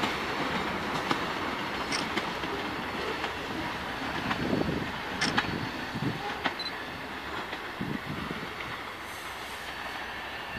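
Freight train of covered hopper cars rolling away down the track, its wheel noise slowly fading, with scattered clicks of wheels over the rail.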